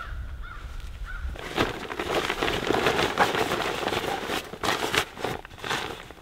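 Backpack fabric rustling and crinkling, with many small sharp crackles, as a fleece is stuffed into the pack. A low wind rumble sits on the microphone for the first second or so.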